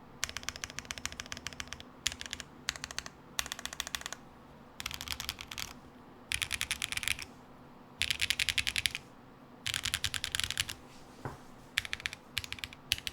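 Custom GHS.JEM mechanical keyboard with a carbon fiber plate, lubed Zaku switches and GMK keycaps being typed on: quick runs of clacky keystrokes with short pauses between them.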